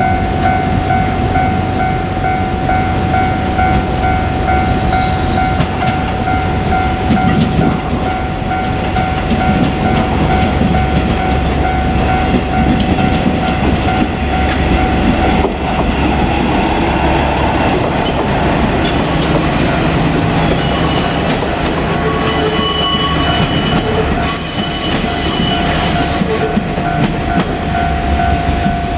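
KiHa 47 diesel railcars running over a level crossing, with a steady diesel engine rumble and wheels clattering over the rails while the crossing alarm rings a steady tone. High-pitched wheel squeal comes in during the last third.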